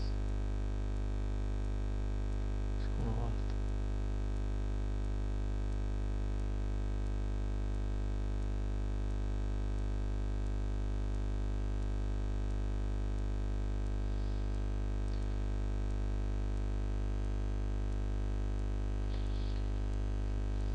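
Steady electrical mains hum, a low buzz with many evenly spaced overtones, with a few faint clicks near the middle and end.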